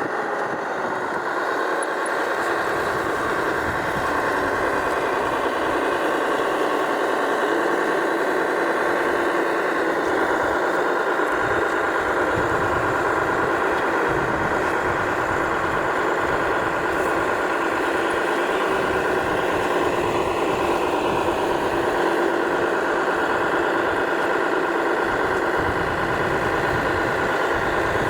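Steady whine from scale RC construction machines' electric drives and hydraulic pump, its pitch climbing at the start and dropping about ten seconds in.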